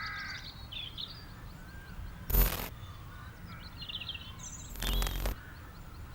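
Small birds chirping over a low steady rumble of wind. Two sharp, loud bangs break in, one about two seconds in and a slightly longer one about five seconds in.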